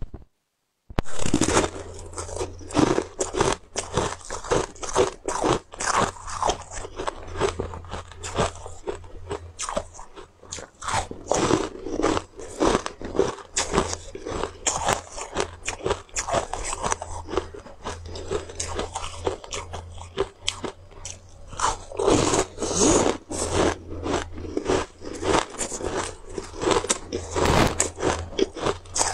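Round frozen ice discs being bitten and chewed: loud, quick, irregular crunches of ice cracking between the teeth, starting about a second in. A steady low hum runs underneath.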